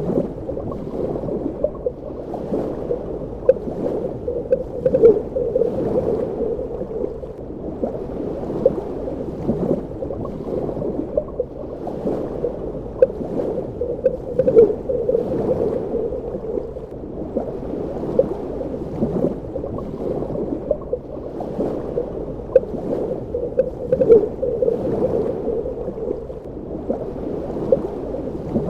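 Underwater ambience: a steady, muffled water rush dotted with many small bubbles gurgling and popping, swelling and easing every several seconds.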